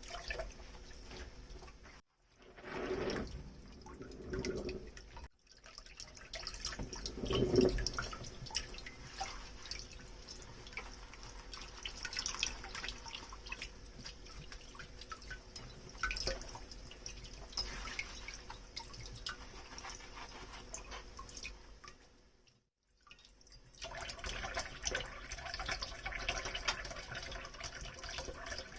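Dishes being hand-washed at a kitchen sink: water dripping and trickling with many small clicks and knocks of dishes being handled, a few louder splashes early on, and tap water running more steadily near the end. Three brief dead silences break it up.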